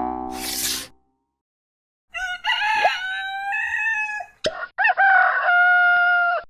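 Rooster crowing twice, each crow a long held call, with a sharp click between them. A short hissing burst comes in the first second.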